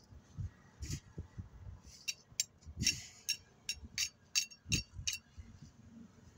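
Steel shovel blade clinking against a metal mortar pan as wet mix is scooped into it: a quick run of sharp ringing clinks, about three a second, from about two seconds in to about five seconds, with duller thuds of the scoops landing.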